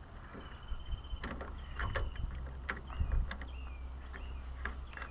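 Hand riv nut gun being worked to set a threaded rivet nut in sheet metal: scattered clicks and knocks of the tool, with a few faint high chirps.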